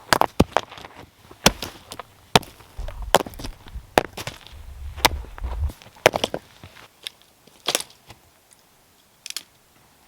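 Rocks clacking and knocking against each other as they are set in place to build a fire-pit ring: irregular sharp knocks, thick for the first six seconds and then only a few scattered ones.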